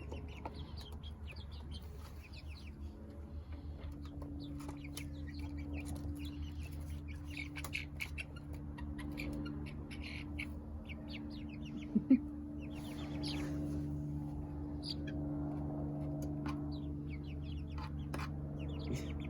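Young chickens peeping and clucking, many short high chirps. A steady low hum runs under them from a few seconds in, and two sharp knocks come about twelve seconds in.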